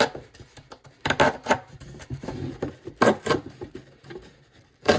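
Saw blade of a Victorinox Huntsman Swiss Army knife rasping through cardboard in short strokes, about one a second. The coarse teeth bite in hard.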